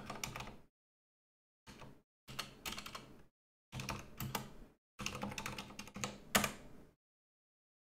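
Computer keyboard typing: several short runs of quick keystrokes, broken by brief pauses of dead silence.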